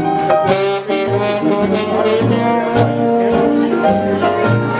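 Live small jazz band playing an up-tempo blues number: saxophone and brass melody lines over steady, evenly paced bass notes.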